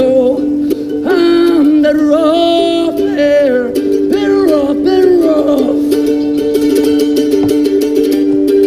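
Background music: a song with plucked strings and a melody that slides in pitch over the first few seconds, over steady held notes.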